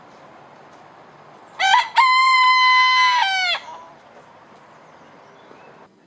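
A rooster crowing once, about two seconds long: a short rising first note, then a long held note that falls away at the end.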